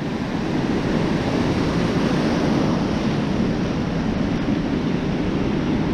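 Steady rush of ocean surf breaking on the beach, with wind on the microphone.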